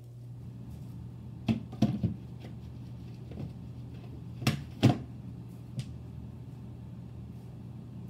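Hoover vacuum cleaner motor running with a steady low hum, under a series of sharp knocks and clicks: three in quick succession about a second and a half in, two louder ones near the middle, and one more a second later.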